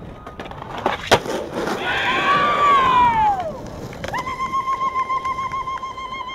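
Skateboard wheels rolling on concrete, with a sharp clack about a second in. Then come long high calls: one sliding down in pitch, and from about four seconds in one held steady with a slight wobble.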